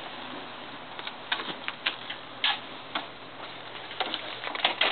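Aerosol lubricant sprayed onto a motorcycle drive chain in a string of short bursts at uneven intervals.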